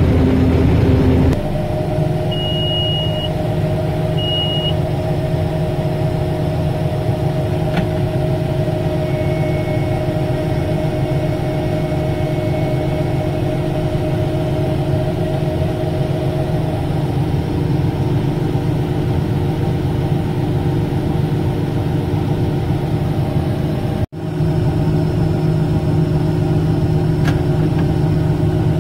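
Combine running while its unloading auger pours corn into a grain cart, heard from inside the cab: a steady engine and machinery drone. Two short electronic beeps sound a few seconds in, and the sound cuts out for a moment near the end.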